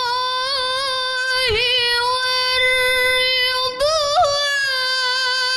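A female voice singing sholawat, sustaining one long melismatic note with small wavering ornaments. There is a brief break and a quick turn about four seconds in.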